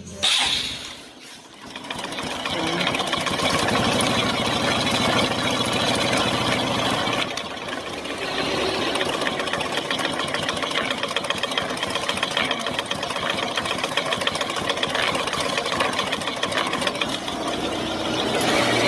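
Honda Supra X 125 single-cylinder four-stroke engine started and idling with its clutch cover off, with a harsh rattling sound like metal grinding inside the clutch case. The clutch housing is spinning with a bad wobble, which the mechanic later traces to a worn bearing on the transmission shaft.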